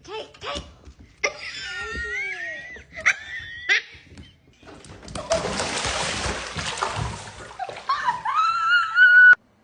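Splashing and sloshing water for about two seconds in the middle, between high, wavering, pitched cries; the sound cuts off abruptly near the end.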